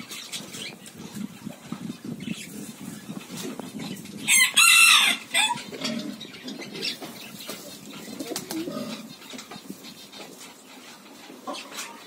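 A chicken calls loudly once, about four seconds in, a single call about a second long. Soft scattered clicks and faint low sounds run beneath it.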